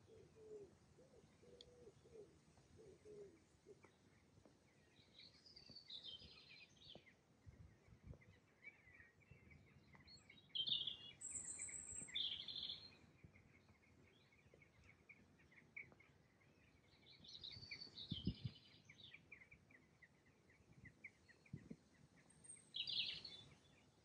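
Faint birdsong: short high phrases come several times over a thin run of quick chirps, with a low repeated cooing in the first few seconds. A few soft low thuds.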